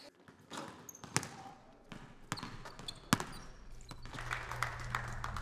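Basketballs bouncing on a hardwood gym floor, a few sharp irregular bounces ringing in the hall, with the odd squeak of sneakers. A low steady hum comes in over the last couple of seconds.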